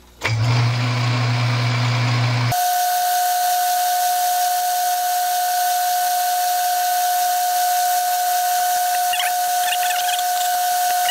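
Metal lathe starting up, then running steadily while its tool takes a light 4-thou turning cut at a slow feed. About two and a half seconds in, the sound changes abruptly from a low hum to a steady high whine over a hiss.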